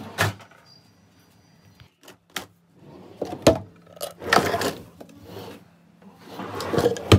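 Built-in cabinet drawers being handled: a knock as a drawer is pulled, a couple of light clicks, then three stretches of sliding and scraping with toys shifting inside. The loudest knock comes at the very end.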